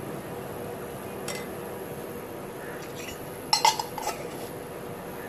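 Kitchen utensils clinking: a steel spoon in a glass bowl of sambar gives a light clink about a second in, then a few louder metallic clinks come about three and a half seconds in as a round steel lid is handled.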